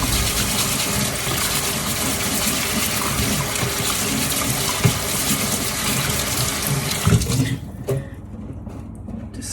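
Kitchen tap running steadily into the sink, shut off about seven and a half seconds in, followed by a few small knocks.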